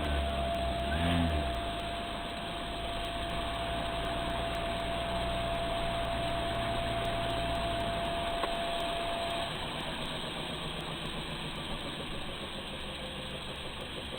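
FlyWing MH-60T Jayhawk RC helicopter's motor and rotors running with a steady hum and a held whine. The pitch rises briefly about a second in, and the low hum dies away about eight seconds in.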